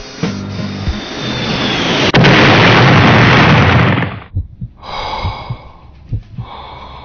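Soundtrack sound effect: a rushing noise swells for about two seconds into a loud, even roar that cuts off sharply about four seconds in. Quieter noise with a few scattered knocks follows.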